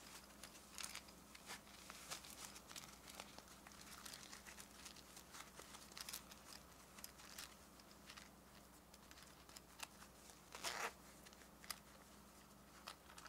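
Soft rustling and light scratching of a small reversible egg-to-penguin plush's fabric being handled and turned inside out, in many short, faint crinkles, with one louder brushing rustle near the end.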